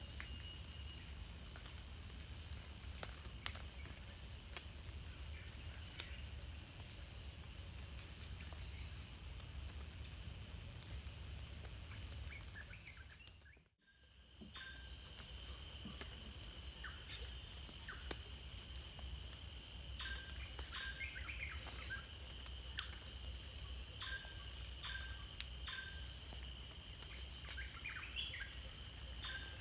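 Tropical rainforest ambience: insects droning steadily, a bird's long whistle rising slightly in pitch, repeated about every seven or eight seconds, and short chirps in the second half over a low steady rumble. The sound dips away briefly about halfway through.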